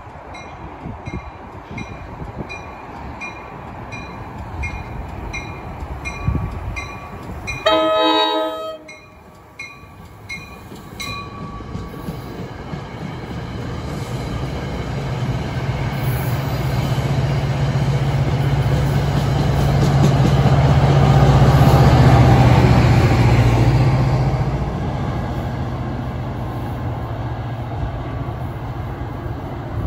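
A bell ringing about twice a second, with a short train horn blast about eight seconds in. Then a diesel commuter train approaches and passes: its engine drone and rail noise swell to a peak about two-thirds of the way through and ease off.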